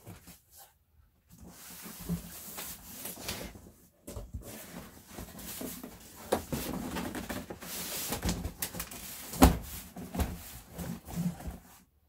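Cardboard box being opened and slid off a PC case by hand: rustling and scraping of the cardboard and its flaps, with short knocks throughout and one sharp knock about nine and a half seconds in.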